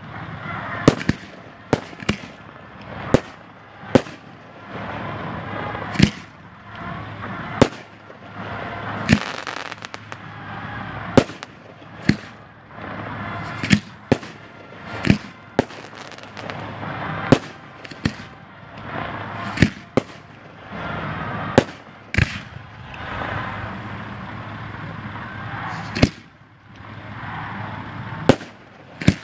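Aerial fireworks shells bursting in an irregular volley of sharp bangs, about one a second, with a steady noisy rush between the bangs and a short lull near the end.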